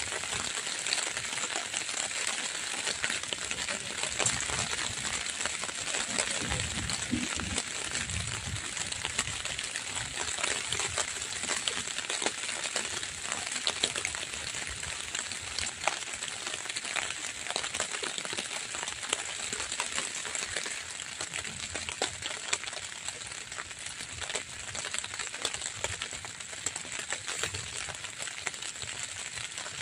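Light rain falling on a camping tarp overhead: a steady hiss with many small, irregular drop ticks throughout.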